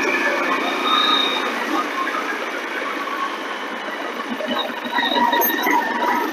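Road traffic and vehicle engines running on a drive, a steady din with a few held higher tones coming and going.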